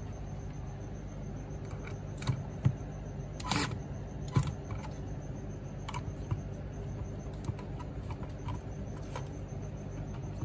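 Small metallic clicks and taps from nuts, cable lugs and a socket on a cordless driver being handled on a motor controller's stud terminals. Two short, louder rasps come about 3.5 s and 4.5 s in, over a steady low hum.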